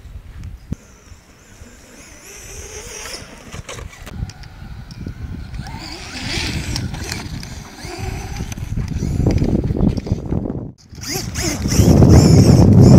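Traxxas Slash RC truck with a Turnigy 2650kv 1/8-scale brushless motor running on sand, its high electric whine rising and falling with the throttle as the tyres churn and spray sand. Near the end it comes close and a heavy low rumble grows very loud.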